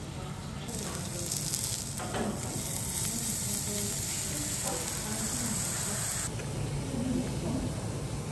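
A slice of fatty, marbled beef sizzling loudly on a small tabletop grill plate. The sizzle stops abruptly about six seconds in.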